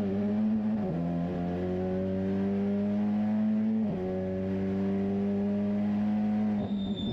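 Toyota Super TC 2000 race car's engine heard from inside the cockpit at speed, its pitch climbing slowly, broken twice by brief dips at gear changes about one and four seconds in. The engine sound cuts off shortly before the end.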